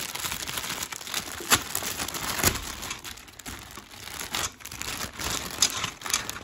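Clear plastic bag crinkling and rustling as hands unwrap it, in irregular crackles with a few sharper, louder ones.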